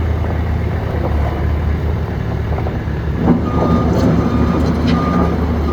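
Thomas 2200 ProTough skid steer loader's engine running steadily. A little over three seconds in there is a clunk, and its backup alarm starts beeping, about three beeps every two seconds, as the loader reverses.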